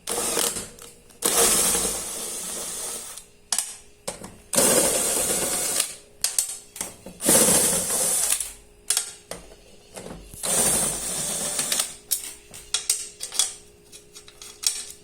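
A 12 mm wrench ratcheting in about five runs of a second or two each, with scattered clicks between, as bolts on a washing machine are loosened.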